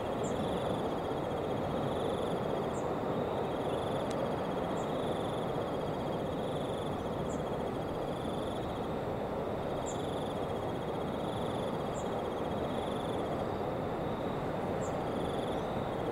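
Outdoor ambience: a steady rushing noise, with an insect repeating short high trills every second or two and a few brief high chirps over it.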